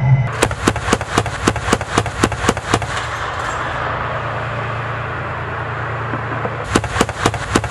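Armoured vehicle's autocannon firing in quick single shots, about three or four a second, in two strings: one through the first few seconds and another starting near the end, with a steady engine run underneath.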